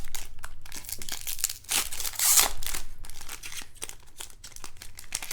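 Baseball card pack wrappers being torn open and crinkled, a busy run of crackling and tearing that is loudest about two seconds in.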